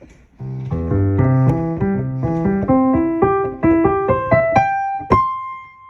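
Keyboard music: a run of notes climbing steadily in pitch, ending on one held note that rings out.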